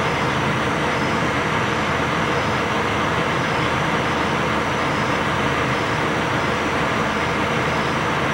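Steady rumble of a fire engine's diesel engine running, unchanging throughout, with a faint short high chirp repeating about once a second.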